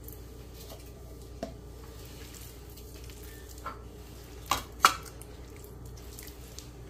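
A hand squishing and mixing soft butter, egg and liquid in a well of flour on a countertop, with a few short wet slaps and taps, the loudest pair about four and a half to five seconds in. A steady low hum runs underneath.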